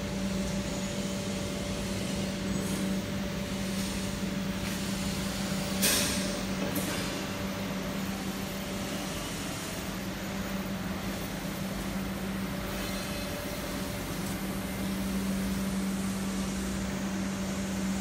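Steady hum of factory machinery, a constant low drone over a wash of noise, with a short rush of noise about six seconds in.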